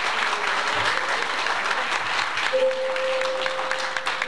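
Audience applauding steadily at the end of a song. About two and a half seconds in, a single steady instrument note comes in and is held under the clapping.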